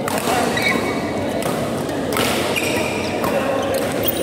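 Badminton rally in a large, echoing hall: rackets striking the shuttlecock with several sharp smacks about a second apart, among short squeaks of shoes on the court mat.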